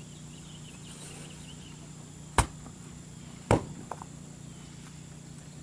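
Two sharp knocks about a second apart, with a small tap just after: stone border blocks being struck to bed them level in their trench.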